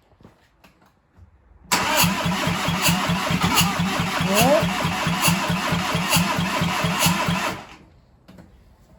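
Seat Arosa's 1.9 TDI PD diesel cranking on the starter for about six seconds, an even rhythmic chug of about six compression pulses a second. It does not fire; the owner suspects the immobilizer.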